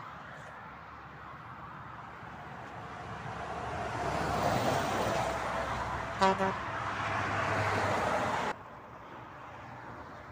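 Motorway traffic passing close by, the road noise swelling as vehicles go past, with a vehicle horn giving two short toots about six seconds in. The traffic noise then cuts off suddenly.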